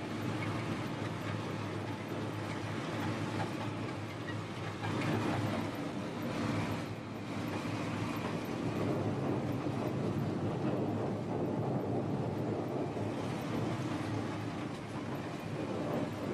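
A ZiL-130 truck driving, its V8 petrol engine a steady low drone over road noise.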